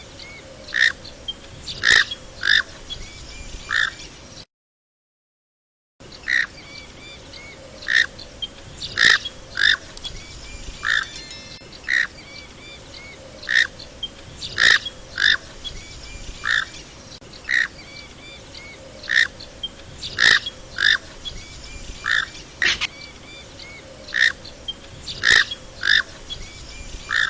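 Knob-billed duck (comb duck) calling in short, sharp notes repeated every half second to a second. A faint steady background hum runs underneath, and the calls break off into complete silence for about a second and a half, about four seconds in.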